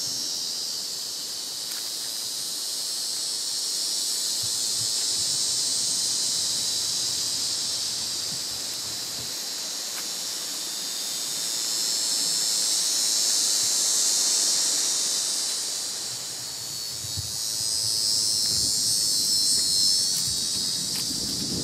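Chorus of insects: a dense, high-pitched buzzing that swells and fades every several seconds, loudest about two-thirds of the way through. A few soft low thumps near the end.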